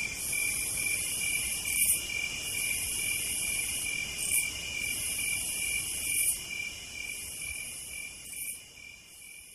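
Chorus of night-singing insects: a continuous high shrill hiss that swells about every two seconds, over a steady, rapidly pulsing trill lower in pitch. It fades out toward the end.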